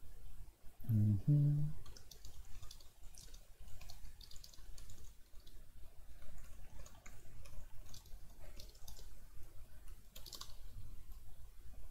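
Computer keyboard and mouse clicks, irregular light taps and clicks. A short murmur of the man's voice about a second in.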